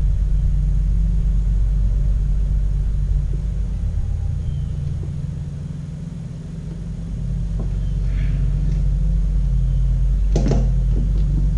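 Steady low rumble of a running engine or motor, easing a little midway. Near the end come a few light clicks and one sharper clink of small carburetor parts being handled.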